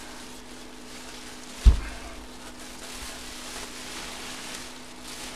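Faint rustling of plastic bubble wrap around a football helmet as it is handled, with one sharp, dull thump about a second and a half in.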